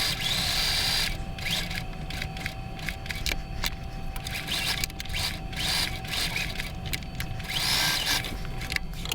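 Electric sewing machine stitching, its motor running with a steady whine and scattered clicks.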